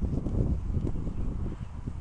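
Low, irregular thuds and rumble from a player's movement jolting a helmet-mounted camera's microphone, likely footsteps, with some wind on the microphone.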